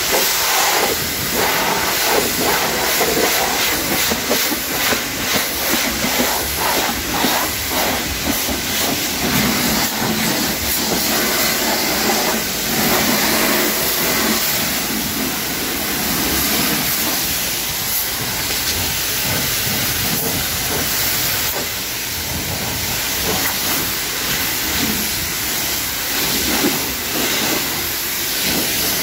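Water spray hissing steadily onto a car's body, rinsing dirt and road salt off the paint, with the hiss wavering and sputtering as the spray moves across the panels.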